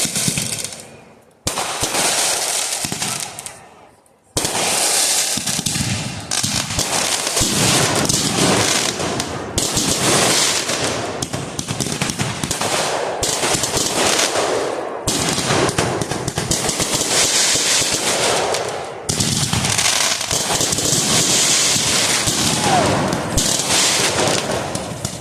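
Fireworks going off: rapid crackling and popping like strings of firecrackers. Two short bursts come first, then from about four seconds in a dense, almost unbroken crackle.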